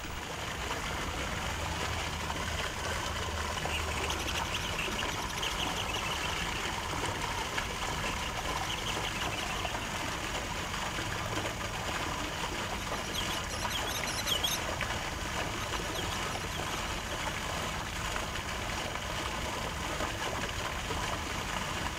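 Garden fountain jets splashing steadily into a shallow water channel, with a few brief high chirps about two-thirds of the way through.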